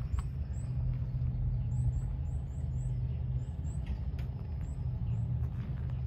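A low steady rumble with a hum in it, like a motor running, with short faint high chirps now and then and a few light clicks.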